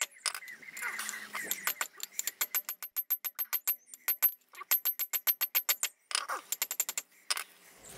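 Hammer striking a hot railroad spike on a length of railway track used as an anvil, drawing out the spike: rapid ringing metal blows, several a second, in runs broken by short pauses about halfway through and near the end.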